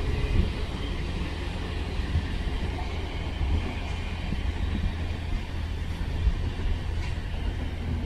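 Thameslink Class 700 electric multiple unit running through on the far tracks and moving away, heard as a steady low rumble.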